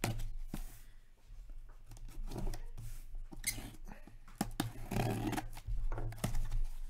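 Packing tape on a cardboard shipping box being slit with a small blade and torn off. It comes as a series of short scratching, tearing and clicking strokes, with the cardboard rustling.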